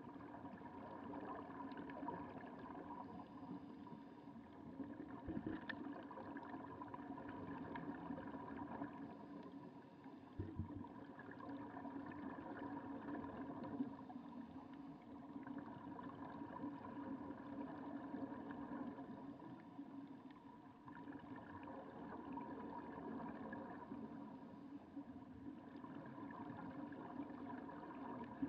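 Underwater sound of snuba divers breathing through hose-fed regulators: exhaled bubbles gurgling in swells every few seconds over a steady mechanical hum carried through the water.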